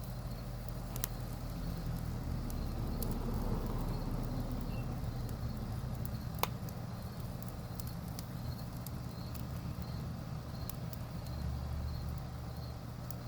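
Outdoor background: a steady low hum with scattered light clicks and one sharper click a little past halfway.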